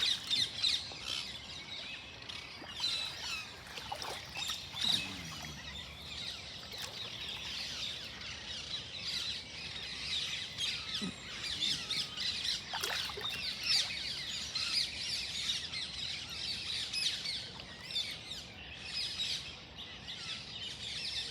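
A large flock of parakeets calling all the while, many overlapping high chirps and squawks with no pause.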